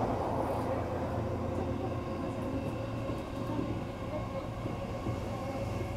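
Inside a JR East E233-series electric train running between stations: a steady rumble of wheels on rail and the car body, with a faint steady tone held underneath.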